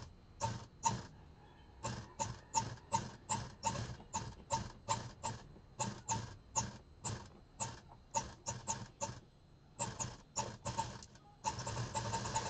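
Black domestic sewing machine stitching through cotton fabric, slowly at first, about three separate stitch strokes a second with a few short pauses. Near the end it runs fast and continuous.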